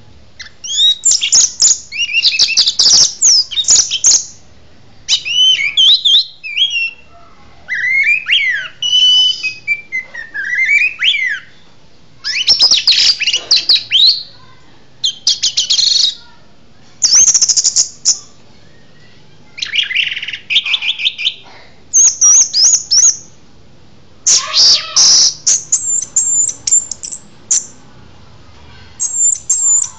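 Caged songbird singing loud, varied bursts of song: rapid trills, whistled glides and fast strings of notes in phrases of one to four seconds, about ten in all, with short pauses between.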